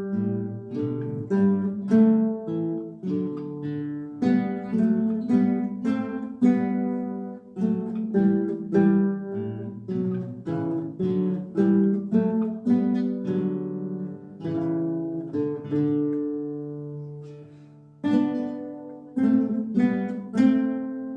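Acoustic guitar ensemble playing a Christmas carol arrangement: plucked and strummed chords in a steady rhythm. A chord is held and dies away about 16 to 18 seconds in before the playing starts again.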